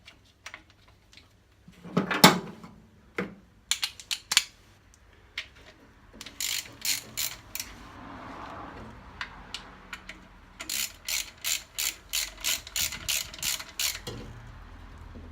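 Ratchet wrench clicking in two runs of about four clicks a second, turning the 12 mm bolts that hold a clutch slave cylinder to the gearbox bell housing, with a few scattered metal knocks before the first run.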